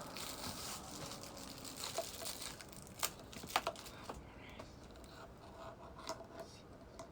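Handling noise: soft rustling and crinkling with a few sharp clicks, the loudest about three and a half seconds in, as of headphones and their cable being handled.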